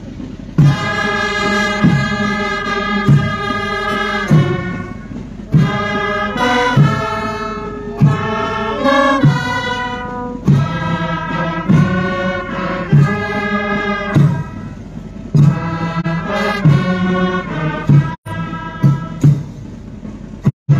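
Group of voices singing a song together, held notes changing every second or so, over a drum beat about once a second.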